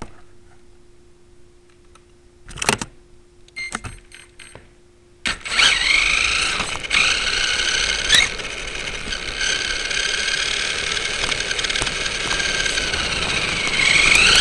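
Radio-controlled truck's motor and drivetrain whining as it drives, picked up by a camera mounted on its front. A few knocks and clicks come first; the whine starts about five seconds in, rises and falls in pitch with speed, and climbs steeply near the end as the truck speeds up.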